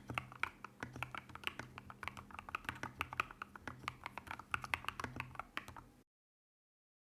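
Fast, steady typing on a Royal Kludge RK100 mechanical keyboard with MMD Princess factory-lubed switches and MOA-profile keycaps: a dense run of keystroke clacks that cuts off abruptly to silence about six seconds in.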